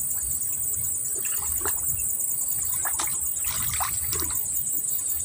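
Splashing in the water as a hooked snakehead is played near the bank, a few short splashes and rustles. Under it runs a steady, high-pitched insect chorus that pulses quickly.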